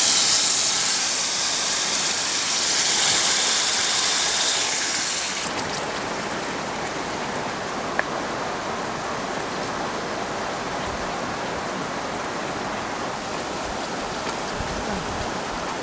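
A loud, even hiss for about the first five seconds that cuts off sharply, followed by a softer steady rush of water.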